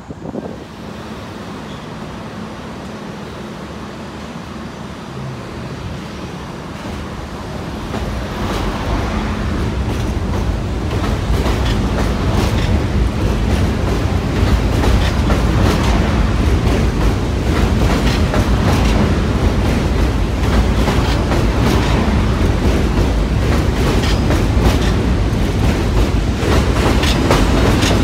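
R42 subway train running on an elevated steel structure, growing louder over the first ten seconds or so. After that it keeps up a steady loud rumble with rapid clicking of its wheels over rail joints as the cars pass close by.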